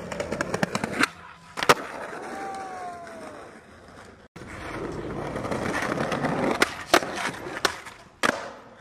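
Skateboard wheels rolling on concrete and asphalt, with sharp board pops and landing slams: a loud crack about two seconds in and four more near the end. A long roll on asphalt grows louder before them, and the sound cuts off suddenly between clips about four seconds in.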